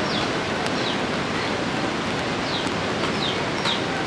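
A bird repeating short, high chirps that fall in pitch, about half a dozen times, over a steady rushing noise.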